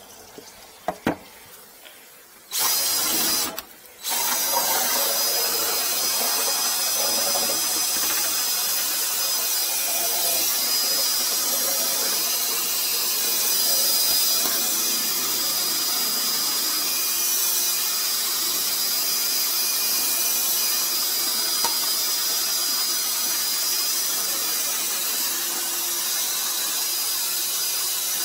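Cordless drill spinning a flexible drain-cleaning cable inside a sink drain pipe to scour out buildup: a short run of about a second, a brief stop, then running steadily from about four seconds in.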